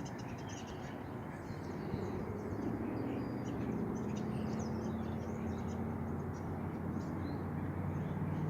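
Outdoor ambience: many short bird chirps over a steady low rumble.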